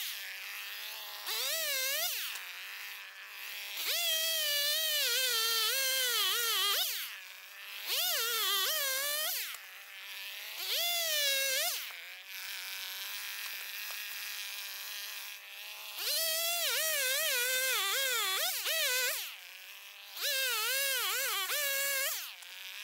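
Two-stroke chainsaw cutting through a fallen birch log: the engine revs up for each cut, its pitch wavering as the chain loads in the wood, then drops back to a steady idle between cuts, about six times.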